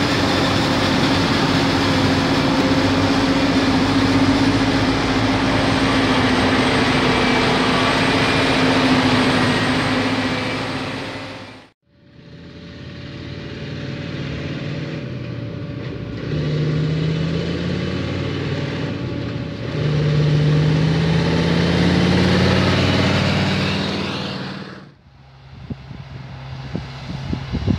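Heavy farm machinery at work on corn silage: a steady, loud drone from a forage harvester and a Tatra 815 Agro truck while chopped corn is blown into the truck's body. The sound cuts off suddenly about twelve seconds in, and then a truck engine rises in pitch twice as it pulls across the field.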